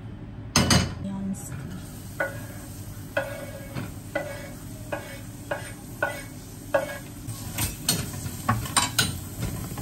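Chopped onion sizzling in hot oil in a steel frying pan, with a knife scraping it off a wooden cutting board in strokes about once a second, then a spatula stirring and clicking against the pan near the end. A loud knock comes about half a second in.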